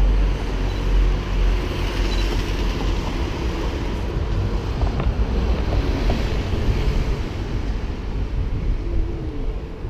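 Wind buffeting an action camera's microphone: a steady deep rumble with hiss above it.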